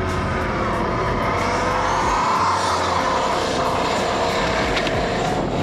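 Pontiac Turbo Trans Am doing a burnout: engine held at high revs while the spinning rear tyres squeal, the pitch wavering up and down.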